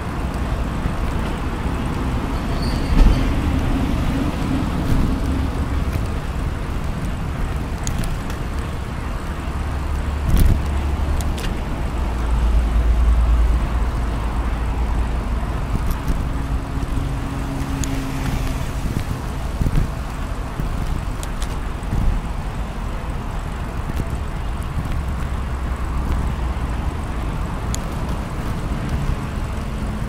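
Steady rumble of road traffic, with a couple of short knocks.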